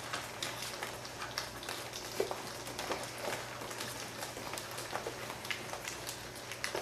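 Four-week-old Greater Swiss Mountain Dog puppies lapping and smacking at wet mush: a dense, irregular run of small wet clicks and smacks.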